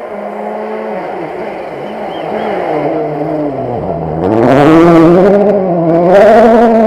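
Rally car engine approaching and passing close on a gravel forest stage, its revs rising and falling through gear changes and climbing hard as it gets louder. Two loud bursts of rushing noise come as it goes by.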